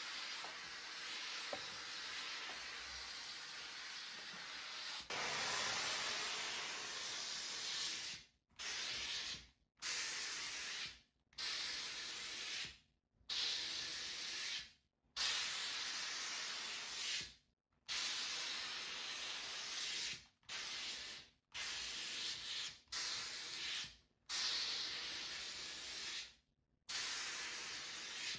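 A steady hiss that is cut off abruptly and resumes again and again from about five seconds in, each stretch lasting one to two seconds.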